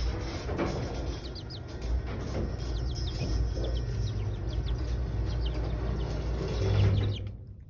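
Month-old chicken chicks peeping: short, high, falling chirps scattered throughout, over a steady rustling noise that cuts off abruptly near the end.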